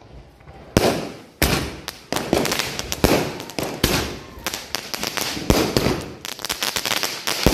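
Multi-shot aerial firework cake firing: shells going off with a sharp bang about once or twice a second, starting about a second in. Dense crackling stars sound between and after the bursts.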